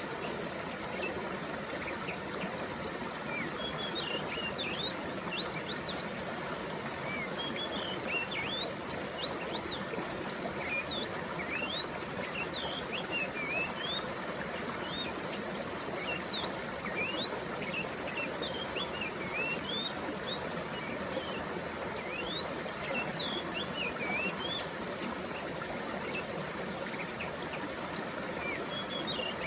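Mountain stream water flowing steadily, with many birds chirping throughout in short, quick notes.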